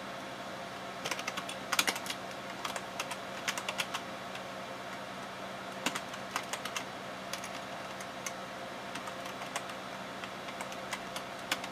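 Typing on a computer keyboard: short runs of key clicks with pauses between them, over a steady low hum.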